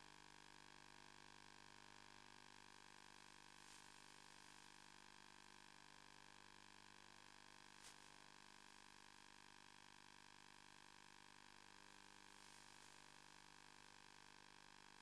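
Near silence: a faint steady electrical hum and hiss, with a faint click about eight seconds in.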